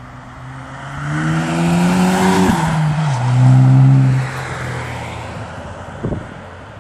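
Škoda Octavia RS III with a Supersprint aftermarket exhaust accelerating past. Its engine note climbs in pitch, drops sharply about three seconds in and is loudest for about a second after that, then fades as the car moves away.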